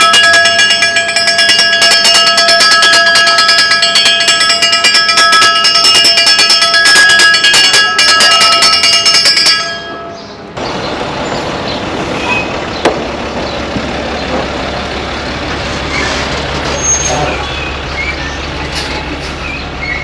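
A hand bell rung rapidly and loudly, the bell that calls residents out to the garbage truck, stopping abruptly about nine and a half seconds in. After that, the garbage truck's engine runs steadily at idle under faint street sounds.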